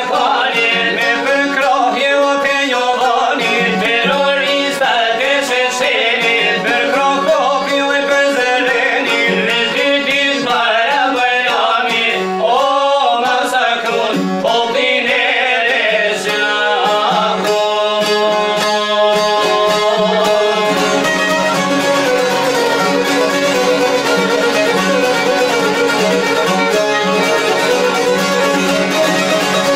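Albanian folk music on violin and çifteli (two-stringed long-necked lutes), with male singing over the first half; from about 16 seconds in, the strings play on alone in an even, fast plucked rhythm.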